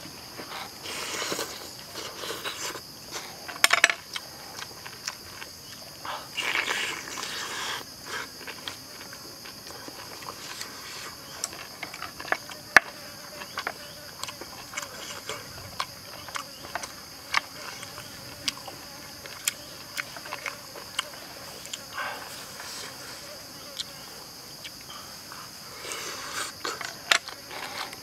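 A person eating with chopsticks: several bursts of chewing and mouth noise with scattered short clicks, over a steady high chirring of forest insects.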